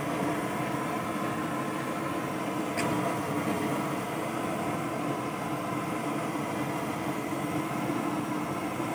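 Steady roar of an LPG burner flame under a wok of simmering chicken broth, even in level throughout.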